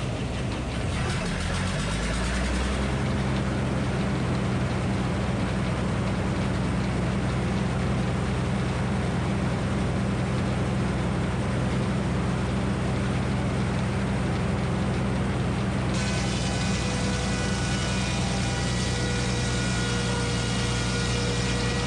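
Minneapolis Moline HEB 605 cubic-inch engine powering a Frick circular sawmill: it picks up speed over the first couple of seconds, then runs steadily. About three-quarters of the way through, a higher whine of several steady tones joins it.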